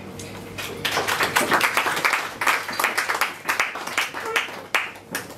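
Audience applauding, a short round of clapping that starts about a second in and dies away near the end.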